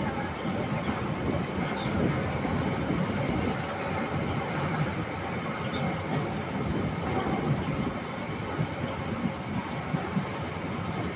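Passenger train in motion: a steady rumble of the wheels running on the rails.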